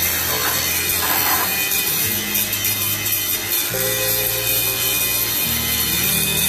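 Stick-welding arc with a 7018 electrode crackling steadily on carbon-steel pipe during the cap pass, over background music with a low bass line that changes note every second or two.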